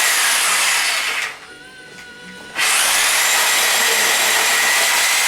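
Reciprocating saw cutting through deer ribs. It runs, stops about a second in for over a second, then starts again and runs steadily, with a steady high whine under the cutting noise.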